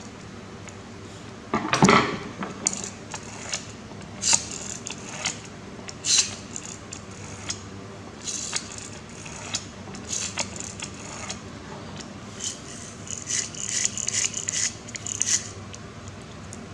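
Small toy-car parts clicking and clinking as they are handled and fitted together. There is a louder knock about two seconds in and a quicker run of clicks near the end.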